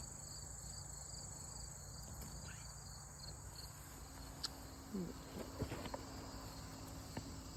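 Evening insect chorus: a steady high trill with a regularly pulsing chirp over it. A few faint short sounds come in during the last few seconds.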